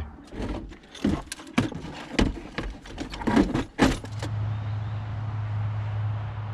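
A quick run of clicks, knocks and rattles, like keys and latches being handled. About four seconds in, a steady low hum with a hiss over it starts suddenly and keeps going.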